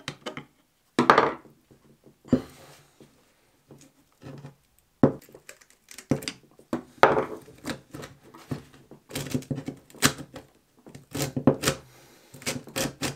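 Steel screwdriver scraping and prying at the seized, mud-encrusted cocking piece of a corroded G10 air pistol, in irregular scrapes, knocks and clicks as it is worked loose, then a screwdriver turning in the pistol's screws. The clicks and rattles come thick and fast in the last few seconds.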